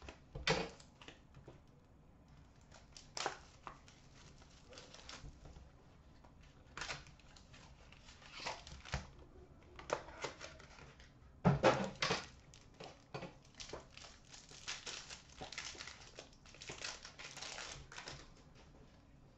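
A box of 2013-14 Panini Select hockey cards being opened and its packs handled: cardboard and pack wrappers crinkling and tearing in scattered short bursts, with a few small clicks and taps, the loudest burst a little past the middle.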